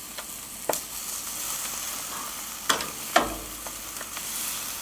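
Filet steaks sizzling on a hot gas-grill grate, with three sharp clacks of metal tongs on the grate and warming rack as the steaks are lifted up to rest.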